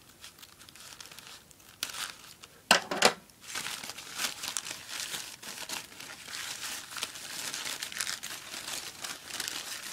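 Scissors cutting through the tape on a paper wrapping, with two sharp sounds about three seconds in. After that the paper crinkles and rustles steadily as hands unfold it.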